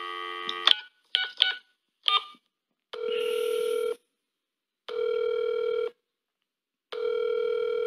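Telephone call sound effect: a few short clicks, then three steady ringing tones through the receiver, each about a second long and about two seconds apart. It is the ringback tone of a call waiting to be answered. A held multi-note tone fades out under a second in.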